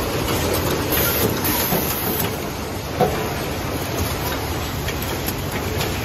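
Automatic wire cutting, stripping and crimping machines running: a steady mechanical hiss and clatter with scattered clicks, and one sharp knock about three seconds in.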